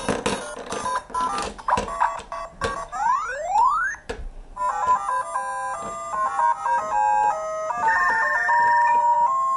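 Cartoon sound effects: a busy run of clicks and short tones, then two quick rising whistle sweeps, followed by a short electronic video-game-style jingle of beeping notes.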